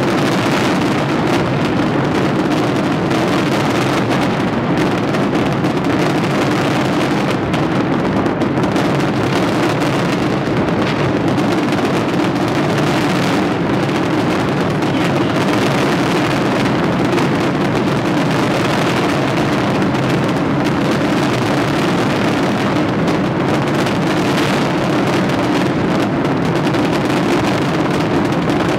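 A dense fireworks barrage going off without pause, its many bangs and crackles merging into one steady, loud rumble.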